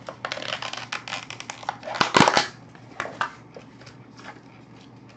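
Close-miked eating sounds from a person at the table: a dense run of small clicks and smacks, loudest about two seconds in, then thinning to scattered clicks.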